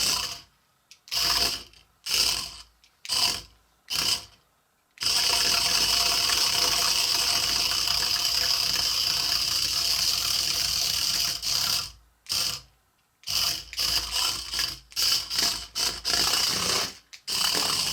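Hexbug Fire Ant remote-control robot's small motors and gear-driven tracks whirring in stop-start bursts as it is driven: short bursts about a second apart, one long run of about seven seconds from about five seconds in, then quicker short bursts near the end.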